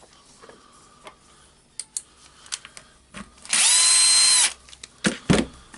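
An electric screwdriver runs for about a second in one steady burst, backing a screw out of the rotary hammer's housing. Small clicks and handling knocks come before and after, with a sharper knock shortly after the motor stops.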